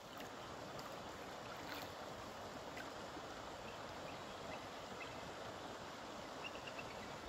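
Wooden canoe paddle dipping and pulling through calm lake water, with water trickling and lapping faintly along the canoe hull.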